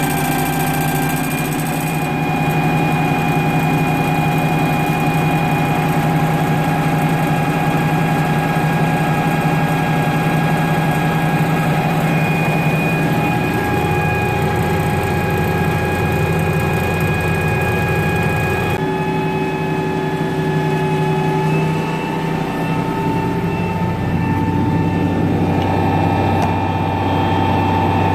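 International Harvester 3588 2+2 tractor's six-cylinder diesel engine running steadily, heard from inside the cab while it pulls a tillage disc. Its tone changes abruptly about two-thirds of the way through.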